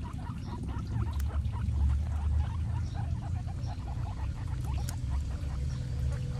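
Several guinea pigs chewing and crunching fresh vegetables, with a quick run of small crunching clicks, over a steady low hum.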